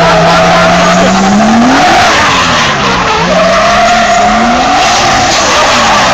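Drift car sliding in circles with its rear tyres spinning and screeching while the engine is held at high revs. The revs rise and fall several times as the driver works the throttle.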